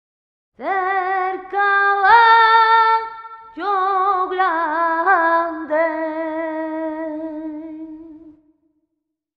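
A woman singing unaccompanied: a slow, richly ornamented melody with wavering, bending notes in several phrases, the last note held long and fading out near the end.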